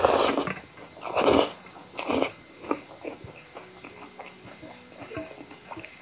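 Close-miked eating sounds: three loud mouthfuls of chewing in the first two and a half seconds, then softer mouth clicks.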